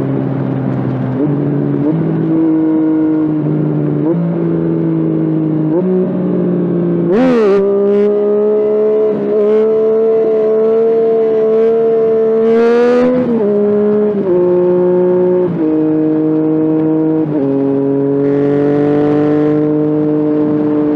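Yamaha FZ-09 (MT-09) 847 cc inline-three engine pulling the bike along at part throttle. Its note holds steady between stepwise changes in pitch: it climbs in steps over the first several seconds, flares up briefly about seven seconds in, holds higher, then drops back in steps after about thirteen seconds. Two short hissy bursts come around seven and thirteen seconds in.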